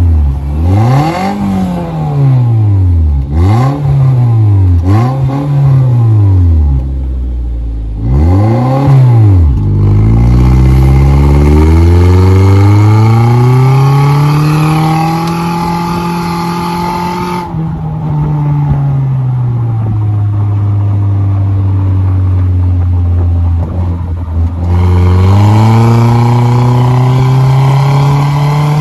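Toyota Premio's engine through a custom-built exhaust being revved: about four quick revs in the first ten seconds, then a longer rev held high for several seconds that drops back to a steady low note, and the revs climb again near the end.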